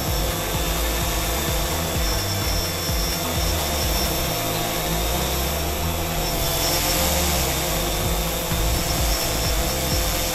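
Quadcopter in flight: its motors and propellers give a steady buzzing hum with a heavy low rumble of buffeting. The motor note wavers and brightens about two-thirds of the way through as it is rolled hard on the sticks.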